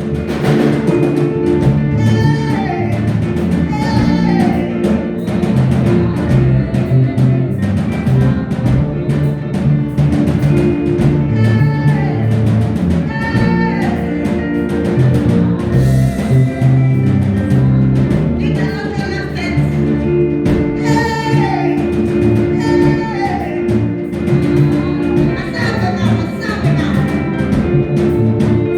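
Church praise-break music: a band with drums and bass playing a steady, driving beat, with singing and a short melodic phrase that repeats every couple of seconds.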